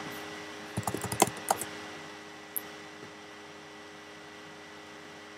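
A quick run of keystrokes on a computer keyboard about a second in, then a single keystroke a second later, over a faint steady hum. This is typing a login name and pressing Return.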